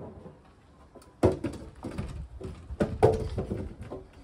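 Wooden planks knocking and clattering against each other and their supports as they are handled and laid down: one knock at the start, then a run of knocks from about a second in, the loudest two near its start and about three seconds in.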